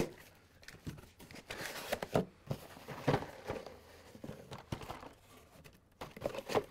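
A corrugated cardboard shipping case being torn open and its contents handled: rustling and scraping of cardboard and packaging cards, broken by several sharp knocks and taps.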